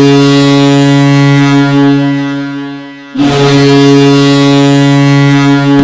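Boston Bruins goal horn, a deep ship-style horn, sounding two long blasts. The first fades out about two to three seconds in, and the second starts just after three seconds and is held.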